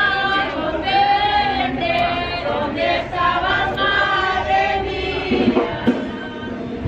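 A crowd of men and women singing a hymn together, voices holding long notes, thinning out near the end.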